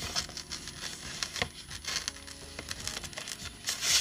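Sheets of patterned scrapbook paper being leafed through and slid over one another, rustling in short strokes, with a louder swish near the end as a sheet is pulled out. Soft background music underneath.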